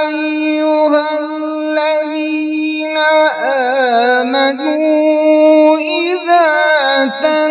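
A male qari reciting the Quran in Arabic in a slow, melodic tajweed style. He draws out long held notes and bends the pitch in ornamented turns about three seconds in and again near the end.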